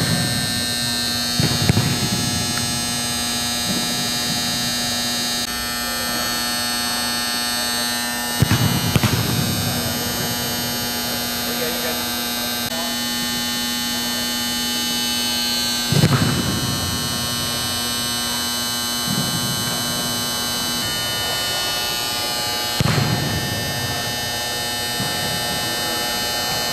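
Four echoing thuds of a football being kicked off a tee, roughly seven seconds apart, in a large indoor practice hall. A steady electrical hum runs under them throughout.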